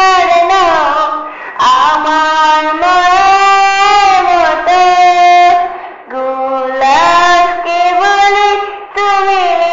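A female voice singing a Bengali Islamic gojol (devotional song) unaccompanied, in long held, ornamented phrases with short breaths between them.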